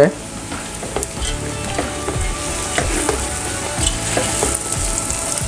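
Vermicelli, chopped dates and nuts with pistachio powder sizzling steadily as they roast in a steel pot. They are stirred with a spatula, and small scrapes and clicks of the spatula against the pot come through now and then.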